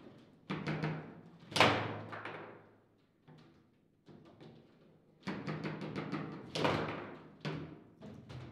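Foosball table in play: quick knocks of the ball, plastic figures and rods, each hit followed by a short low boom from the table body. The loudest hits come about a second and a half in and again about six and a half seconds in, with a lull around the three-second mark.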